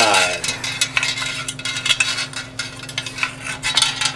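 Flat steel recoil spring scraping and clicking against a cast aluminium snowmobile recoil housing as the housing is turned and the spring is fed inside, a fast, irregular run of light metallic ticks.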